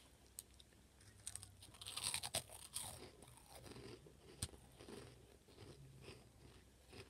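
Flaming Hot Monster Munch corn crisp crunched and chewed in the mouth, the crunching loudest about two seconds in, then softer chewing.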